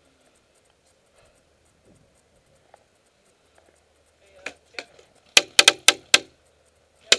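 Airsoft gun shots: two softer cracks, then a quick string of about five loud sharp shots in under a second, and one more shot near the end.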